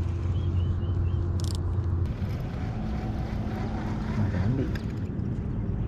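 A motor hums steadily and cuts off abruptly about two seconds in. A fainter engine note follows, briefly rising and falling in pitch.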